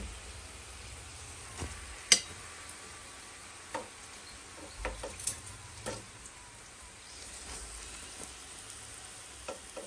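Hot cooking oil sizzling in a frying pan with a steady low hiss and scattered sharp pops and crackles, the loudest about two seconds in.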